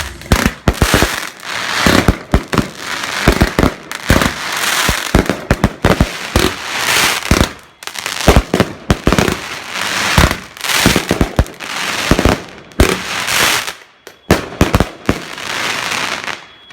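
Fireworks going off: many sharp bangs and crackles in quick succession, with brief lulls about halfway through and near the end.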